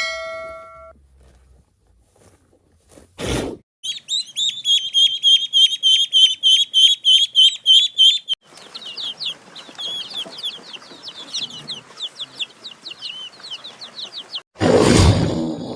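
Bird calls: a fast run of high chirps, then more chirps over a hissy background. A short ringing tone comes at the start, and a loud burst of sound comes near the end.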